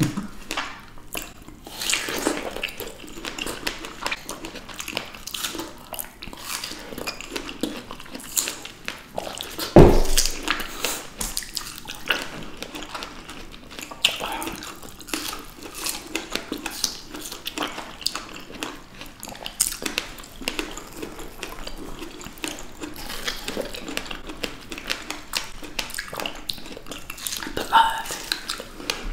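Close-miked eating sounds of fresh strawberries being bitten and chewed: wet, juicy smacks and small clicks one after another. A single loud thump about ten seconds in.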